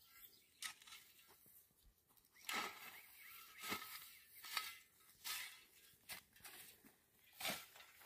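Hand rake scraping and rustling through cut dry grass on hard, dry ground in faint, irregular strokes about once a second, a few louder ones from about two and a half seconds in.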